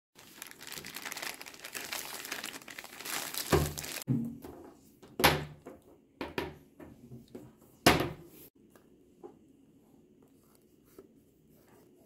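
Clear plastic packaging bag crinkling and rustling as a leather belt is unwrapped, with louder crackles and thumps about 3.5, 5 and 8 seconds in. After that, only faint handling clicks.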